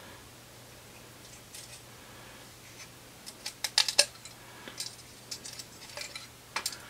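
Small sharp clicks and taps of a floppy disk drive's metal and plastic parts being handled and prodded while trying to pop a piece off, with a quick cluster of clicks a little after three seconds in and scattered clicks after.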